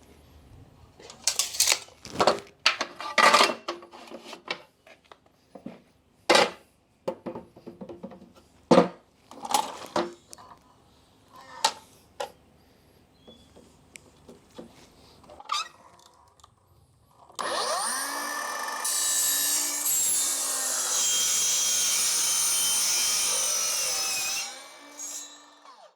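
A series of scattered knocks and clanks from parts being handled. Then a power saw spins up and cuts for about seven seconds with a high, screechy whine before winding down.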